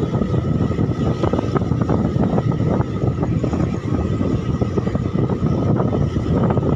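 Motorcycle running at a steady road speed, its engine under a dense low rumble of wind and road noise, with a faint steady high tone.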